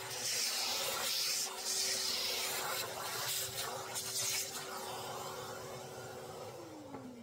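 Vacuum cleaner with a nozzle sucking chips and debris out of a milling machine table's T-slots: a steady rushing hiss over a faint motor whine. About six and a half seconds in the vacuum is switched off and its motor winds down, the whine falling in pitch as the sound fades.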